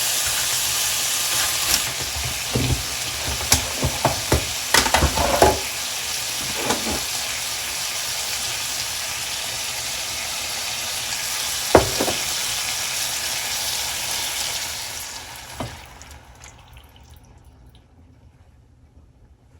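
Food sizzling in a frying pan, with a few knocks and scrapes of a utensil against the pan. The sizzle dies away near the end.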